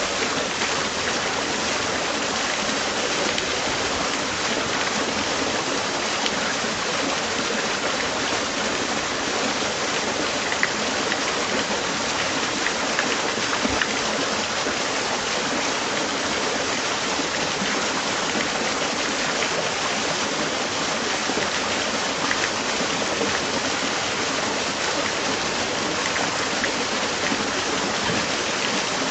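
Steady rush of water at a canal lock, an even hiss with no break.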